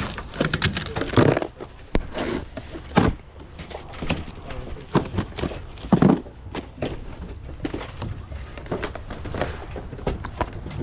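Hands rummaging through boxes of trading cards: hard plastic card cases and top loaders clicking and clacking against each other, with cardboard boxes being shifted, in a string of irregular clicks and knocks.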